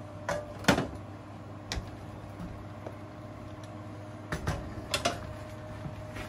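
Cookware knocks on an electric stovetop: a saucepan set down with a sharp clank just under a second in, then a wooden spoon stirring and knocking in a metal skillet, with a few more knocks near the end. A steady low hum sits underneath.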